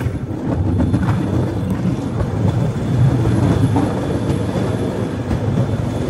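Bamboo train (norry) running along the rails: a steady, loud rumble of its small motor and steel wheels on the track.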